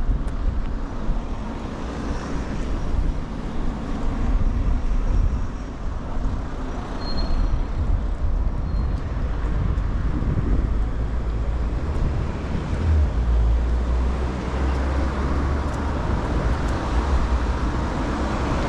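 City street traffic noise: a steady wash of passing vehicles and road noise, with a low rumble that grows heavier about two-thirds of the way through.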